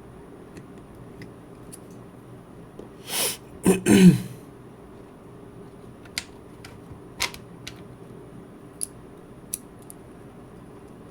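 A person clears their throat once, a noisy breath followed by two short voiced coughs, a little over three seconds in. A few faint, separate light clicks follow, typical of small hand tools on a watch being taken apart.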